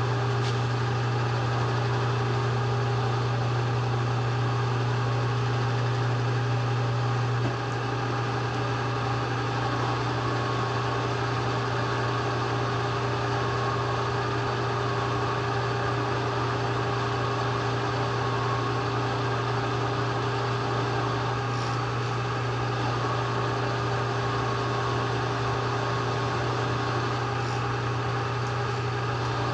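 Steady electric-motor hum of shop machinery on three-phase power from a rotary phase converter, with a strong low drone and a few steady higher tones; the drone drops a little about seven seconds in.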